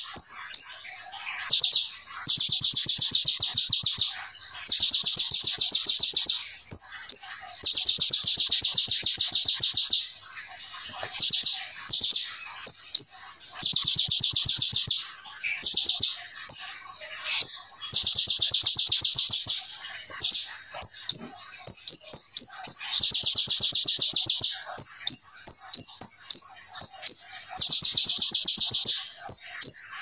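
Caged male kolibri ninja (purple-throated sunbird) singing in rapid bursts. Long, fast, high buzzing trills of about two seconds each come again every few seconds, with quick chirps between them. The trills are its learned 'brem' rattle copied from the ciblek (bar-winged prinia).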